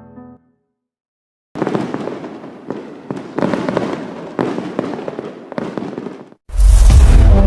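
A run of loud crackling bangs, about one a second, each dying away. Loud music with guitar cuts in near the end.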